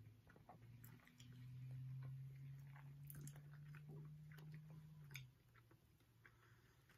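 Faint chewing and mouth noises of people eating soft raspberry cheesecake cookies, with scattered small wet clicks. A low steady hum runs from about a second in until about five seconds in.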